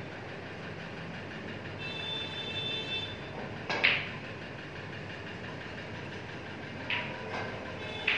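Snooker balls clicking: one sharp, loud click of a cue and ball contact about four seconds in, then a few softer clacks of balls near the end, over a steady background noise.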